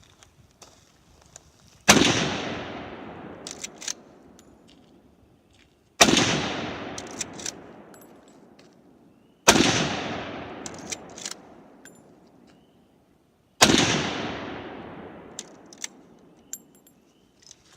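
Four gunshots about four seconds apart, each followed by a long echo that fades over about two seconds. Small clicks and taps come between the shots.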